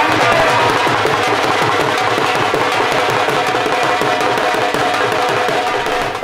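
Punjabi dhol drums playing a fast, dense festive beat, as music for dancing.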